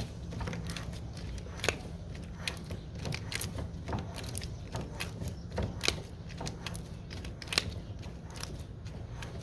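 Metal parts of a Polaris TAPP primary clutch clicking and ticking irregularly as the clutch spider is spun down its threads, over a low steady hum.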